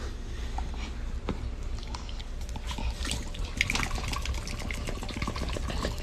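Wet, crackly mouth sounds of a black dog chewing and mouthing at a hand while it is rubbed, many irregular little smacks and clicks over a steady low rumble.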